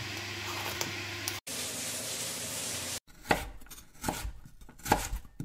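Vegetable peeler scraping the skin off an orange squash, a steady scratchy hiss for about three seconds. Then a kitchen knife chops a vegetable on a wooden cutting board, about six sharp knocks over the last two and a half seconds.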